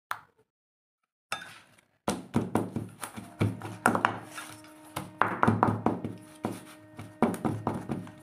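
Round steel cake tin filled with batter, knocked again and again on the worktop: a run of thunks, a few per second, beginning about two seconds in, with the metal ringing on between knocks.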